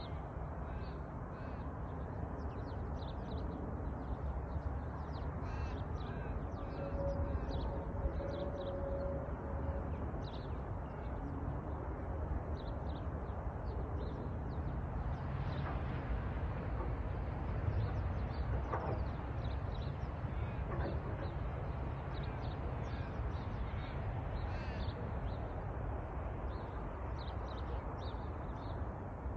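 Wild birds chirping and calling, with many short high calls scattered throughout over a steady low rumble.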